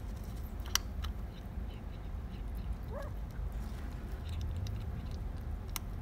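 Calico kitten eating dry kibble: small crunching ticks and two sharp clicks, one about a second in and one near the end, over a steady low rumble. A faint short high call about halfway through.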